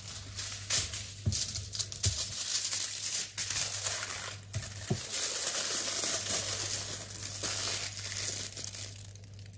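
Aluminium foil crinkling and crackling in irregular bursts as it is folded and twisted around a rolled shawarma wrap.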